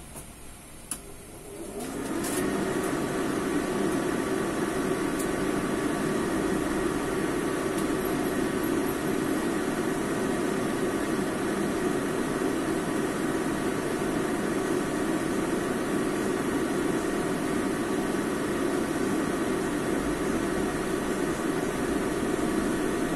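A kitchen fan motor switches on about two seconds in, spinning up with a short rising whine, then runs steadily with an even whirring hum.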